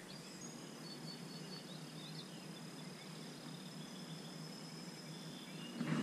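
Quiet riverside ambience: a low, even hiss with a thin, steady high-pitched tone that fades out near the end, and a few faint chirps.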